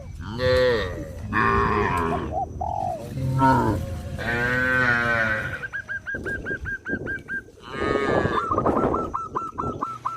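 Cattle mooing repeatedly, several calls in a row with one long moo about halfway through and another near the end. Behind them, in the second half, comes a rapid, even series of short high chirps.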